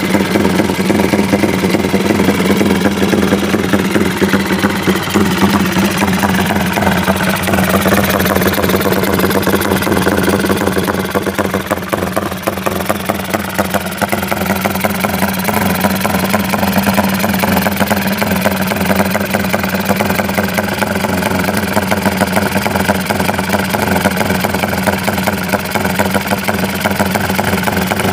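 Honda Tiger single-cylinder engine, freshly rebuilt and bored out to 270cc and still being broken in, idling steadily through an open aftermarket exhaust with a dense, rapid beat.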